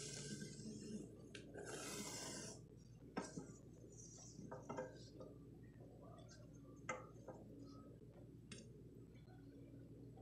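Quiet workbench handling: a soft scratchy hiss for the first couple of seconds, then a few light clicks and taps as a straight edge and pencil are set down and moved on a wooden guitar body.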